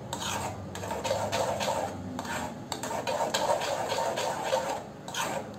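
A metal spoon stirring and scraping a thick, thickening milk-and-chhena mixture around a metal kadhai, in repeated, evenly spaced strokes.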